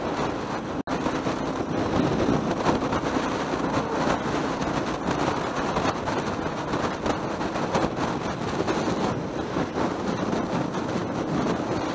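Steady wind and road noise from a motorcycle cruising at about 80 km/h, with the engine running underneath. The sound cuts out for an instant about a second in.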